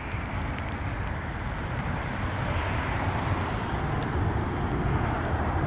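Steady rumble of road traffic, growing slightly louder near the end.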